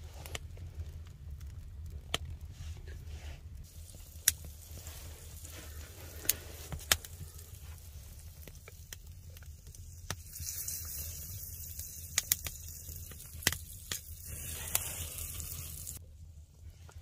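Wood fire crackling with scattered sharp pops. About ten seconds in a high hissing sizzle sets in and cuts off near the end.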